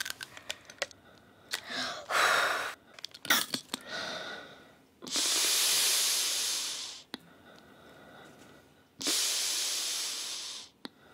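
Asthma inhaler in a large plastic spacer: a run of short rattling clicks as it is shaken, then slow deep breaths drawn through the spacer, two long hissing breaths of about two seconds each with a small click after each.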